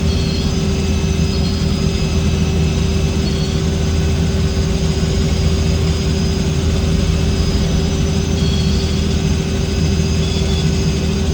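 Helicopter in flight: a steady, unbroken drone of engine and rotors, with a constant whine above it.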